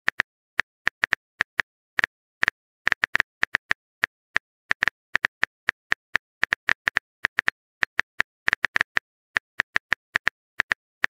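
Phone keyboard typing sound effect: a long run of quick, light taps at an uneven pace, several a second.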